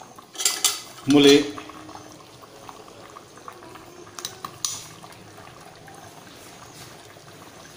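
Thick tomato-and-coconut-milk stew simmering and bubbling in an aluminium pot on a gas burner, with a metal ladle scraping through it near the start and clicking against the pot a couple of times around the middle.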